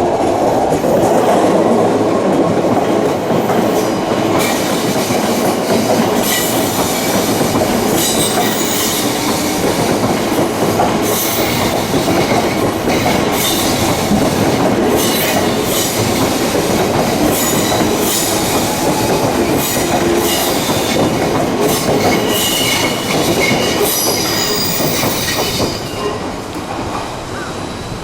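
An Odakyu Line electric train passing close by: a steady rumble of wheels on rail, with a long run of clacks over the rail joints and some wheel squeal. It eases off near the end.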